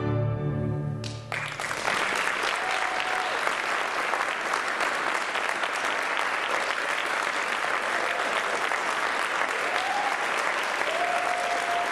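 The stage music ends about a second in, and the audience breaks into steady applause with a few brief cheers.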